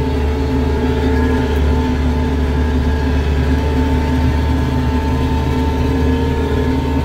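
Kioti RX7320 tractor's diesel engine running steadily under load while pulling a disc-chisel plow, heard from inside the cab: an even drone that holds one pitch.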